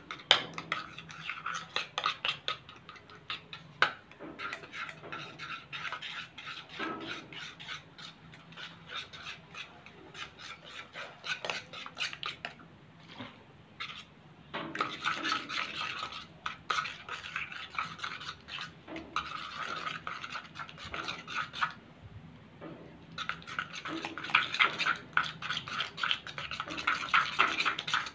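A metal spoon stirring fast in a bowl, scraping and clicking against it as PVA glue is mixed into slime. The scraping comes in busy spells with quieter stretches between.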